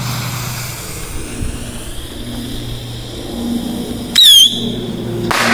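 Pyrotechnic whistles (whistling firecrackers) going off: a hissing fizz, then about four seconds in a sudden, very loud shrill whistle that dips in pitch and then holds steady, with a second whistle bursting out near the end.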